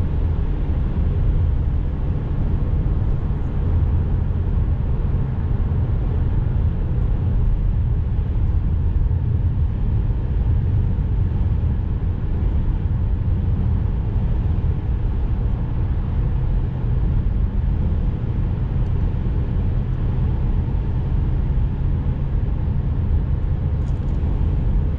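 Steady low rumble of a car driving on a highway: road and engine noise.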